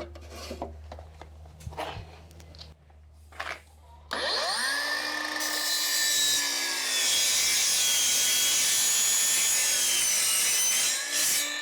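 Power chop saw starting up about four seconds in, its pitch rising as the blade spins up, then cutting through aluminium tubing with a loud, steady noise for several seconds before winding down near the end. Before it starts, a few light knocks and clicks of the tubing being set against the stop.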